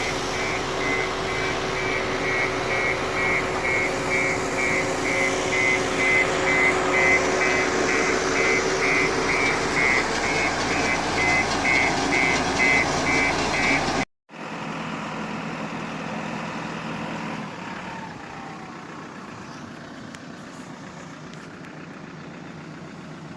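Construction vehicle's engine running with its reversing alarm beeping steadily, about twice a second. About halfway through the sound cuts off suddenly and a quieter engine runs on without the beeping.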